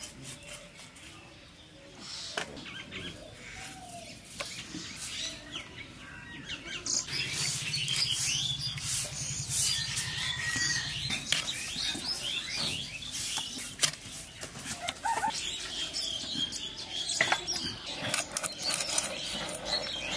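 Small birds chirping in quick, repeated calls, thickest from about seven seconds in, over scattered clicks and knocks from raw chicken being cut by hand on a steel plate. A low drone runs for a few seconds in the middle.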